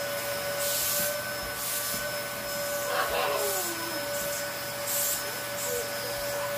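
Vacuum cleaner running with a steady whine, its hose nozzle rubbing over a cat's fur in several short bursts of hiss.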